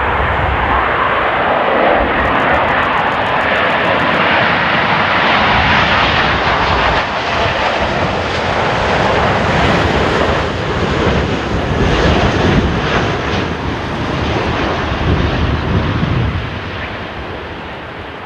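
Boeing 777-200ER airliner on final approach, its twin jet engines making a loud, steady rushing noise as it passes close by. The noise falls off about sixteen seconds in as the plane flares over the runway to land.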